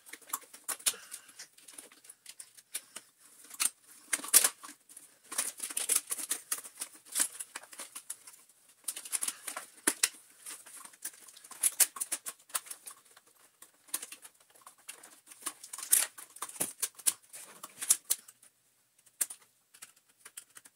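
Rapid, irregular clicking and clattering of plastic parts, sped up, as the bottom carriage of a Dyson DC40 vacuum cleaner, with its cogs and hose, is worked into place by hand. The clicks come in dense flurries and thin out near the end.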